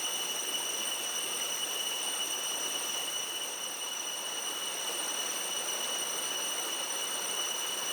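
Waterfall's steady rushing water, with a steady high-pitched whine over it.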